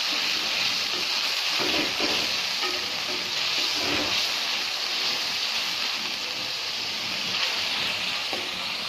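Onion and spice paste sizzling in hot oil in a karahi, stirred with a wooden spatula that scrapes the pan a few times. This is the masala being fried down.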